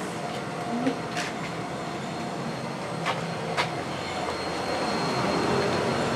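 Steady mechanical hum and rush of running machinery, with a few sharp clicks and knocks and a slight rise in level toward the end.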